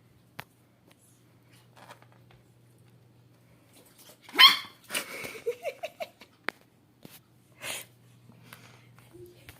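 Pekingese puppy giving one short, high bark about four and a half seconds in, followed by a few soft whimpering squeaks, with scattered small clicks and rustles.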